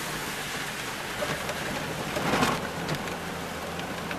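Off-road vehicle driving along a wet dirt trail, heard from inside the cab: a steady engine hum under a wash of tyre and water noise, with a few light knocks and a louder surge of splashing noise a little over halfway through.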